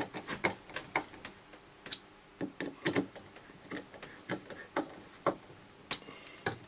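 Small irregular plastic clicks and taps as hands press the Nespresso Aeroccino milk frother's plastic base down and work it into place, a few clicks a second.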